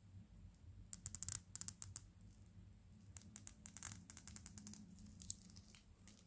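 Unidirectional 120-click ceramic bezel of a Prometheus Zenobia dive watch being turned by hand: short runs of quick ratcheting clicks with pauses between them, the bezel turning with a solid action.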